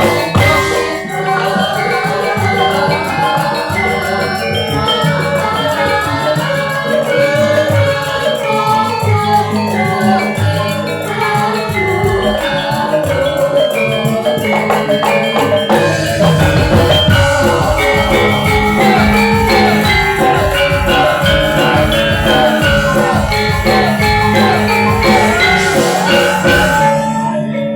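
Javanese gamelan ensemble playing: bronze metallophones and gongs chiming a dense, steady melody, with the kendang drum becoming much busier about halfway through.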